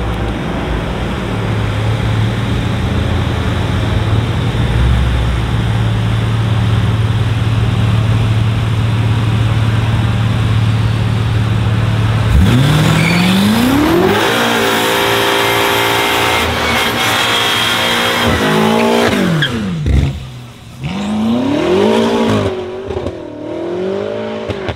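A car engine idles steadily for about twelve seconds, then a BMW M5's twin-turbo V8 accelerates hard, its revs climbing sharply and dropping several times at the gear changes. The engine note dips and picks up again near the end as the car pulls away.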